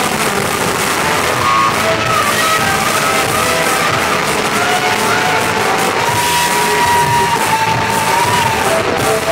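Live rock band playing, with electric guitar and keyboard, recorded with lousy sound quality from among the audience. A long held melody line bends up and down in pitch over the dense band sound.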